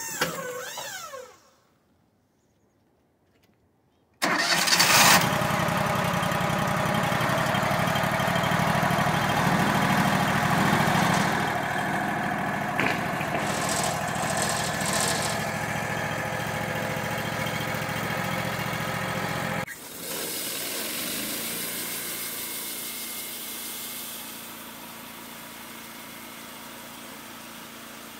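Wood-Mizer LT35 portable sawmill at work. A short whir falls in pitch and stops about a second in. After a few seconds of near silence, a loud, steady machine sound comes in suddenly about four seconds in. It runs for about fifteen seconds, then drops to a quieter, steady running sound that fades a little more near the end.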